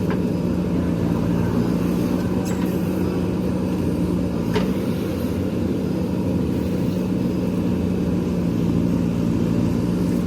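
JCB backhoe loader's diesel engine running at a steady speed, with a faint click or two in the middle.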